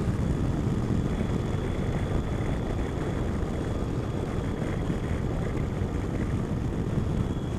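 Wind and engine noise picked up by a microphone inside a motorcycle helmet while riding a Triumph Tiger on its standard exhaust can. It is a steady low rumble with a faint, steady high tone over it.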